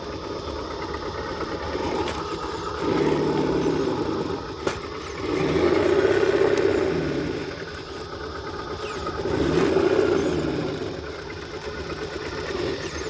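Axial SCX10 II RC crawler's electric motor and drivetrain whining as it manoeuvres, swelling in three throttle surges. A single sharp click comes a little before the middle.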